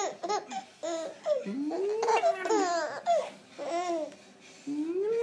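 Young baby laughing in a run of short bursts, with a couple of rising squeals, one about a second and a half in and another near the end.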